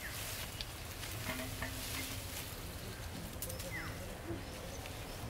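Dry rice straw rustling and crackling as it is gathered up and lifted into a bundle. A bird gives a short falling call at the start and again about four seconds in.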